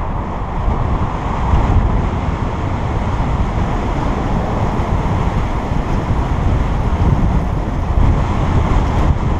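Wind buffeting the microphone of a camera on a moving bicycle: a steady, loud, low rush of noise.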